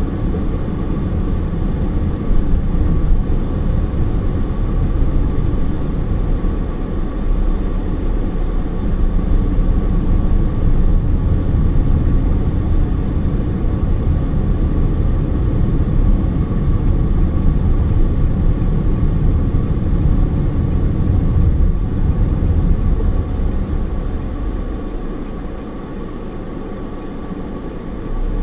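Road and engine noise inside a moving car's cabin: a steady low rumble of tyres and engine with a faint steady whine above it, easing off near the end as the car slows.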